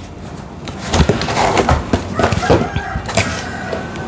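Cardboard shipping box and plastic-wrapped model kit boxes being handled: a run of knocks, scrapes and rustles as the kits are lifted out of the box and set down, with a held pitched tone late on.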